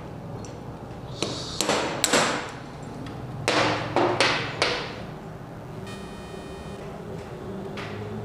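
Light hammer taps on a steel drift, seating a tight valve spring retainer and its collets in an air-cooled cylinder head: a few sharp metallic knocks about a second in, then more clanks about three and a half seconds in as the hammer and drift are laid on the steel bench.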